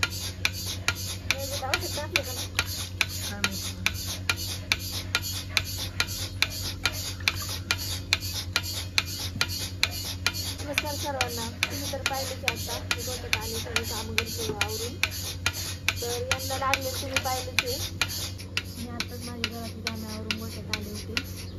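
Bucket milking machine at work: its pulsator clicks evenly, about twice a second, over a steady low hum.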